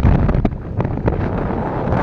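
Heavy wind buffeting on the microphone from riding a motorcycle, with the bike's engine and road noise underneath.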